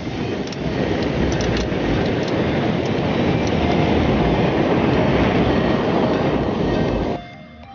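Homemade match- and sparkler-powered jet on a toy truck burning at full thrust: a loud, steady rushing hiss of combustion that cuts off suddenly about seven seconds in.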